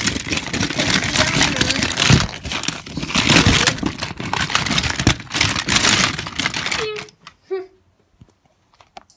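Hands rummaging through a bin of plastic toy cars and blister-packed toys: packaging crinkling and toys clicking against each other. It stops abruptly about seven seconds in.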